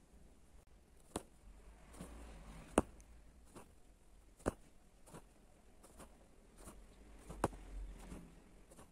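Embroidery needle being pushed and pulled through fabric stretched tight in a hoop, stitch by stitch with silk thread: faint, irregular sharp taps as the needle pierces the fabric, with a soft rustle of thread drawn through between them.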